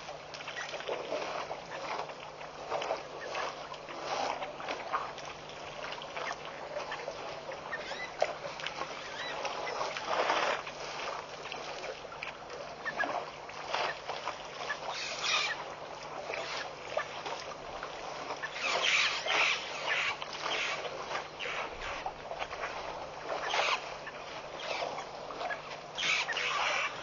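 Elephants drinking at a waterhole: irregular sloshing and splashing of water as their trunks draw it up, mixed with intermittent animal calls, over a steady low hum.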